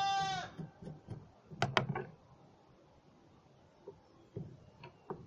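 A goat's bleat trailing off in the first half second, then two sharp clicks about 1.7 s in and a few light taps near the end, from small hand tools handling a battery on a wooden board.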